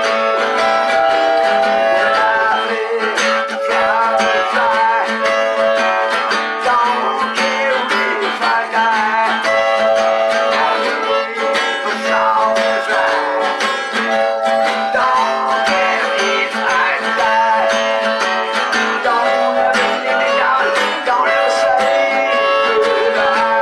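Blues music: a harmonica plays long held and bent notes over a strummed acoustic guitar.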